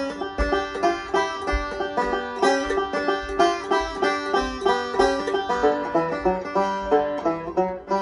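Resonator banjo picked solo in a quick, steady run of bright plucked notes.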